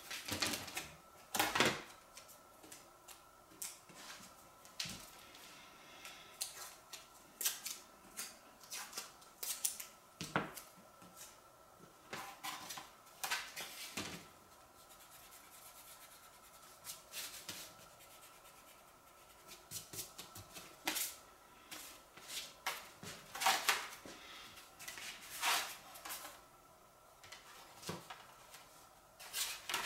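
Thin wood veneer being cut with a hand knife and shifted about on a workbench: irregular short scratchy strokes and light taps, some in quick clusters, others spaced seconds apart.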